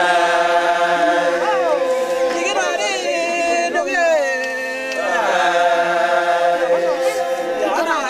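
A group of West Papuan people chanting in unison, unaccompanied. There are three phrases of long held notes, each falling away in a downward slide at its end.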